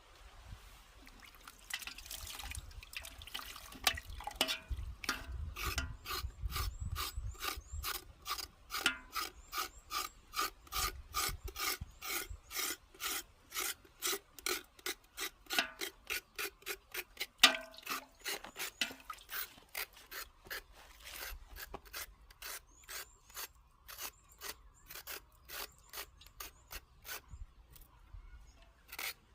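Steady rhythmic scraping by hand, about three strokes a second, with one sharper knock about halfway through.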